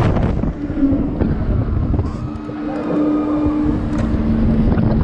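Wind rushing and buffeting over an action camera's microphone as a giant pendulum swing ride swings, with a low rumble and a steady low hum from the ride.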